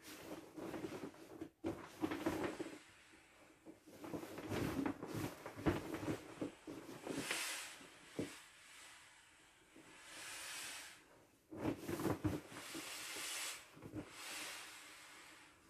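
Inflatable PVC toucan swim ring being squeezed and folded to deflate it: the vinyl rubs and squeaks in irregular bursts, with stretches of air hissing out.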